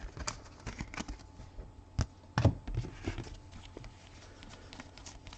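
Trading cards being handled and flipped through: irregular light clicks and taps, with two sharper taps about two seconds in and half a second later.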